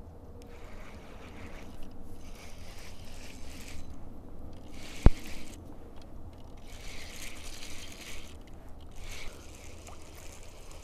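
Handling noise from a spinning rod and reel being cranked: spells of rustling, scraping noise with short gaps, as a hooked fish is reeled in. A single sharp click about five seconds in is the loudest sound.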